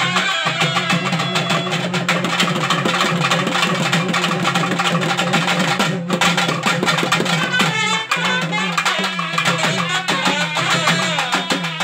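Naiyandi melam folk ensemble playing loudly: nadaswaram pipes carry a wavering melody over fast, dense thavil drumming, with a steady low drone underneath.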